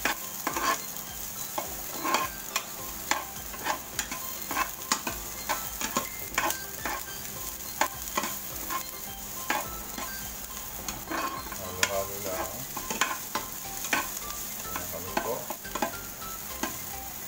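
Sliced red onions sautéing in hot oil in a nonstick pan, sizzling steadily, while a utensil stirs them with repeated short scrapes and taps against the pan.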